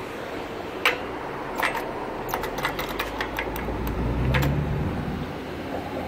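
Road traffic: a car passing close by, its low rumble swelling to the loudest point about four seconds in, with a few sharp clicks scattered through.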